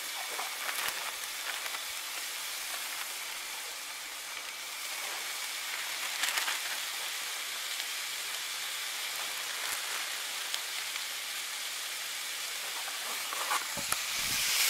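Rabbit meat, onions and garlic sizzling in a frying pan on a propane camp stove: a steady frying hiss, with a few faint clicks.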